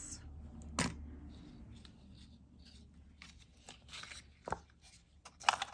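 Quiet handling noises of small jewelry on a tabletop: a sharp click about a second in and another near the end, with faint rustling between.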